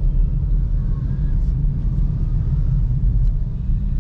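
Cabin noise inside a moving Kia Picanto: a steady low rumble of road and engine noise, with a few faint ticks.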